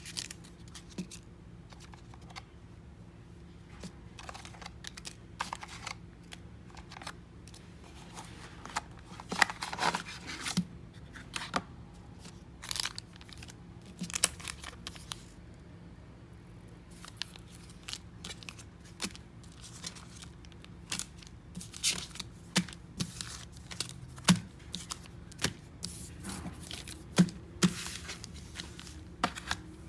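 Packaging being opened and handled: scattered tearing, crinkling and small clicks in short bursts with pauses between.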